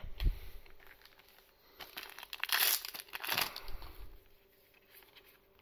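Foil booster-pack wrapper crinkling and rustling in the hands as trading cards are handled, loudest in a stretch of a couple of seconds about midway. A soft thump comes right at the start.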